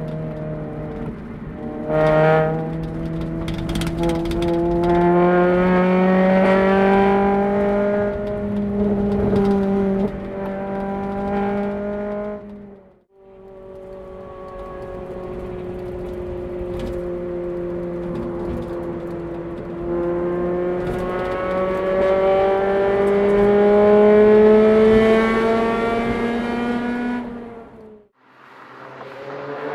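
Honda Civic Type R FD2's K20A four-cylinder VTEC engine and exhaust pulling through the revs, its pitch climbing in two long runs. The sound breaks off sharply about halfway through and again near the end.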